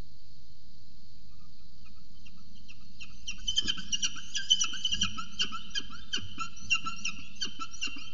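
Peregrine falcons calling in a rapid series of short, sharp notes, several a second, starting about three seconds in as a second falcon lands on the nest-box ledge, with a few knocks on the ledge as it arrives.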